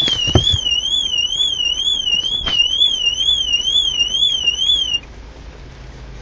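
Nissan car alarm siren sounding as a warbling tone, sweeping up and down about twice a second, then cutting off suddenly about five seconds in.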